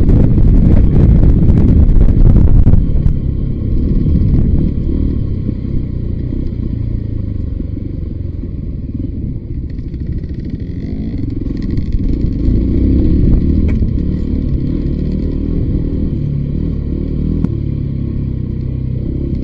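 Voge 300 Rally motorcycle riding down a rough dirt track, its engine under a heavy rumble of wind on the microphone. A burst of rattling and clattering comes in the first few seconds, then steadier riding noise.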